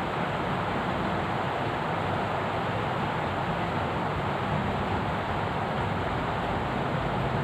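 Steady rushing noise that stays even throughout, with no thunderclap or other distinct sound.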